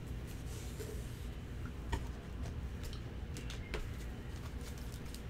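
Light clicks and soft rustling from trading cards being handled and slipped into plastic sleeves and holders, with a steady low hum underneath.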